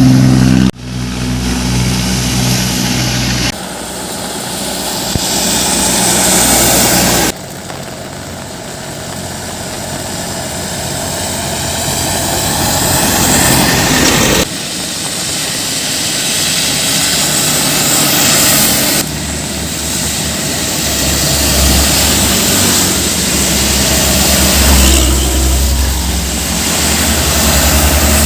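Heavy diesel trucks and buses driving past, in several short takes that change abruptly; within each take the engine and road noise grows louder as the vehicle approaches.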